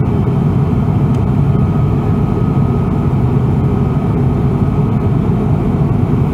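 Inside the cabin of an Airbus A340-600 in flight, its Rolls-Royce Trent 556 engines and the airflow make a steady, low-pitched noise, with a faint steady whine above it.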